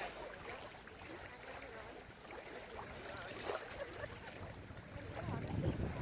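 Faint outdoor ambience with scattered light ticks; from about five seconds in, wind rumbles on the microphone.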